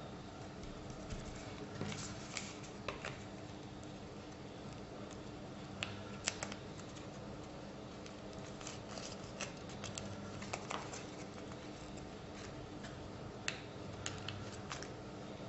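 Scattered small clicks and paper rustles from peeling small alphabet stickers off their backing sheet and pressing them onto a cardstock page, over a faint steady hum.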